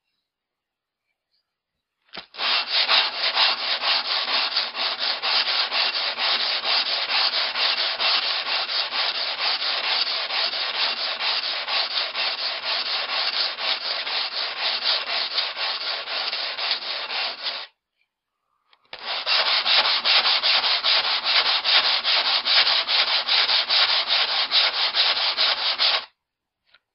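Steel axe bit drawn over coarse 120-grit wet-and-dry sandpaper backed by a foam sleeping mat: quick, scratchy rubbing strokes to grind out nicks and chips and keep a convex edge. It runs for about fifteen seconds, stops for about a second, then runs again for about seven seconds.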